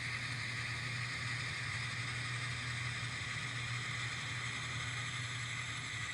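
N scale model locomotive running with its engine sound on: a steady low engine hum over a faint hiss, unchanging throughout.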